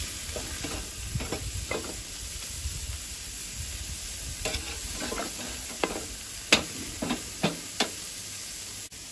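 Meat sizzling on a barbecue grill, with a metal spatula scraping and clicking against the grate a dozen or so times as the meat is checked and moved.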